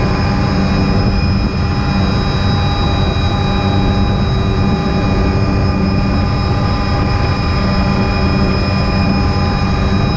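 Helicopter in flight with its doors off, heard from inside the cabin: a loud, steady rotor and turbine drone with several constant whining tones over rushing wind noise.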